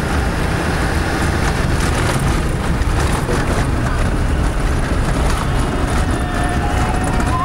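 Cabin noise of an off-road vehicle driving on a deep-sand track: steady engine and tyre noise, with frequent rattles and knocks from the body and load as it bounces.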